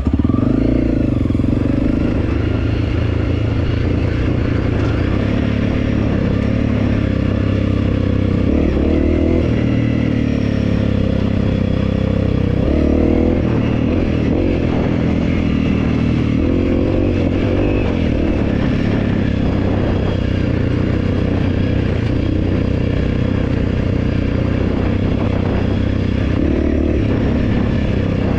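Honda CRF300L's single-cylinder four-stroke engine running under way on a dirt track, its revs rising and falling again and again.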